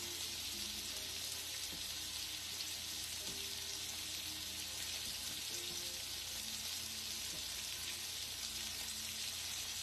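Chicken frying in butter in a pan on high heat: a steady, even sizzle.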